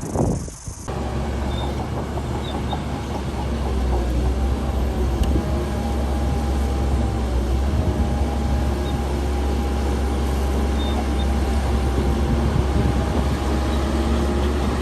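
Diesel engine of heavy earthmoving machinery running steadily: a deep drone with a faint steady whine above it. The sound changes abruptly about a second in.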